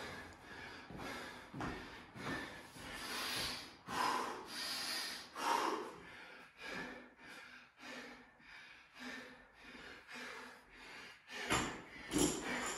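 A man breathing hard and fast, a run of heavy panting breaths while winded mid-workout between barbell reps, with a louder burst of sound near the end.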